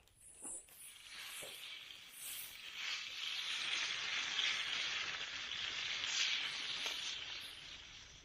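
Pork ribs and whole potatoes sizzling as they fry in a pan, the sizzle building over the first couple of seconds and fading off near the end.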